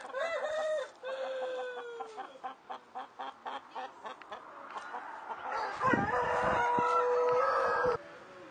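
Rooster crowing, with a quick run of clucks in between: a first crow falls away in the first two seconds, and a longer, louder crow near the end cuts off sharply.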